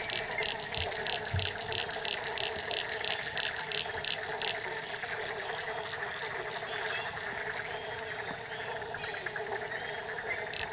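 Dense chorus of frogs calling. Over it a high call repeats in a steady rhythm of about four notes a second, stops about four seconds in and starts again near the end.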